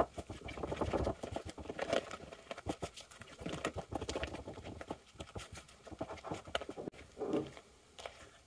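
Silicone spatula stirring thick cake batter in a stoneware mixing bowl: soft, irregular scrapes and wet taps against the bowl.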